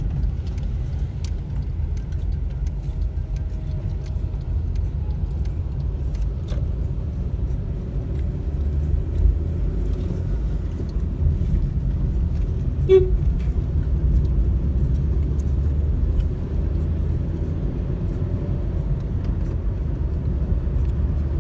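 Steady low rumble of a car driving in city traffic, heard from inside the cabin. About two-thirds of the way through comes a brief vehicle horn toot.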